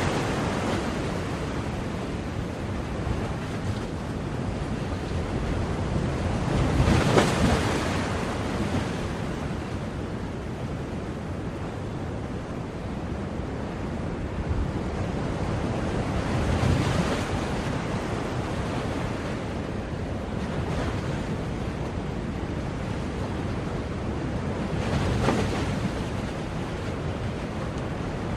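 Ocean waves washing on a shore: a steady surf rush with three louder breakers, roughly eight to ten seconds apart.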